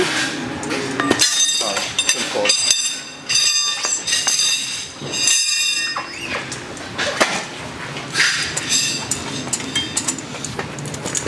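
Knobby dirt-bike tire being worked over its spoked rim on a Rabaconda tire-changer stand: several bouts of high-pitched squealing as the rubber rubs against the rim and the changer's metal, with knocks and clunks in between.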